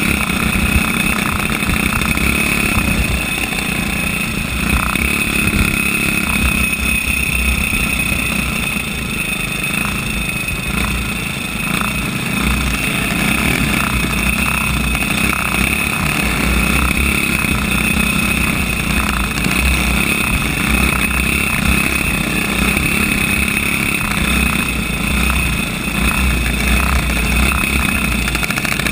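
Single-cylinder flathead racing kart engine running hard at fairly steady revs, heard from on board the kart, with an uneven low rumble of wind on the microphone underneath.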